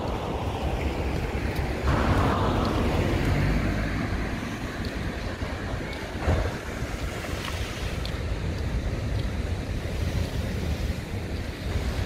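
Ocean surf washing over a rocky shoreline, with wind rumbling on the microphone. The noise swells about two seconds in and again briefly near the middle.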